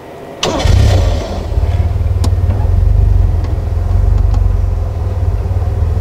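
Safari game-drive vehicle's engine starting about half a second in with a brief loud catch, then running steadily with a low, fast-pulsing rumble.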